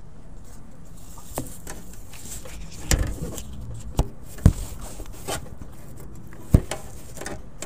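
Sheet music and a folder rustling as they are handled, with several sharp knocks, the loudest about halfway through.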